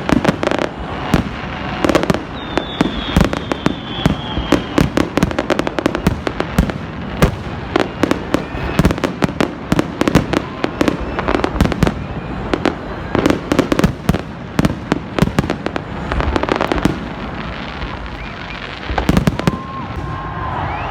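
Many fireworks going off at once in rapid, overlapping bangs and crackles. They thin out about three-quarters of the way through, with a final cluster of bangs near the end.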